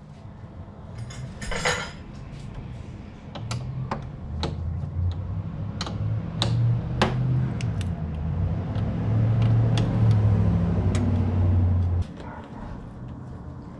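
Metal tools and parts clinking and knocking, over a low motor hum that builds for several seconds and cuts off suddenly near the end.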